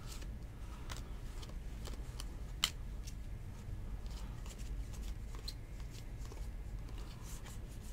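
A stack of Topps baseball cards being thumbed through by hand, card sliding over card with soft rustles and light, irregular ticks. There is one sharper click about two and a half seconds in.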